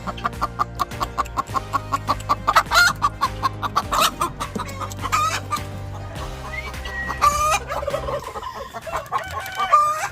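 Chickens clucking rapidly, with a rooster crowing in the last few seconds, over a steady background of music.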